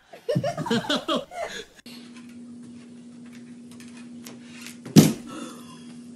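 Excited voices for about a second and a half, then a steady low hum with a single sharp knock about five seconds in.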